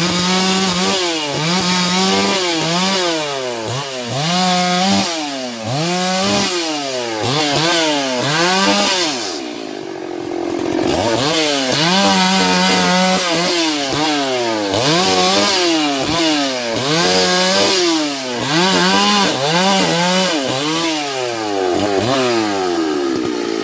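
Two-stroke chainsaw limbing branches from a felled cashew tree, its engine revving up and dropping in pitch with each cut, about once a second. It eases to a lower, steadier note for a moment around the middle.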